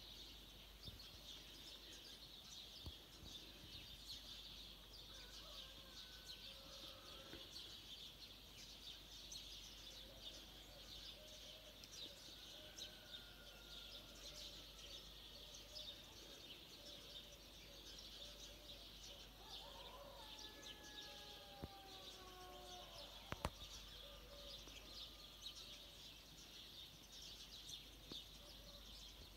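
Near-silent outdoor ambience with faint chirping of distant small birds, and a single sharp click about three-quarters of the way through.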